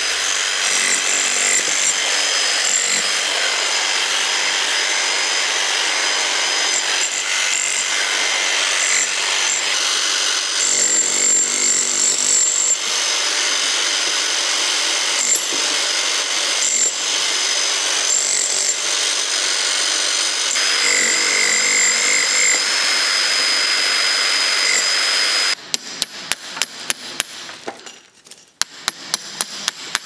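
Electric rotary hammer with a chisel bit hammering continuously into an old brick wall, chipping out brick. About 25 seconds in it stops, and a hand hammer strikes a chisel in quick blows, about three a second.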